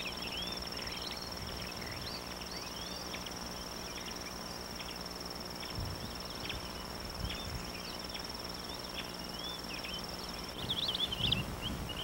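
Savanna ambience: an insect trilling steadily at a high pitch, with short chirps scattered throughout and a louder flurry of chirps near the end.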